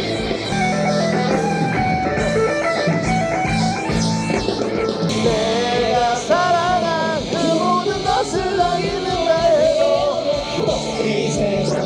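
Rock music from a band with a singer and guitar. The sound changes abruptly about five seconds in, and a sung melody comes forward after that.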